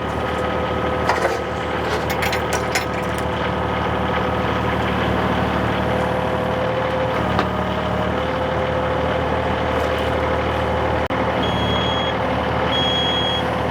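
Yanmar mini excavator's diesel engine running steadily under load with a steady whine while the arm is worked, and a few light metal clanks about two seconds in. A backup alarm beeps repeatedly near the end.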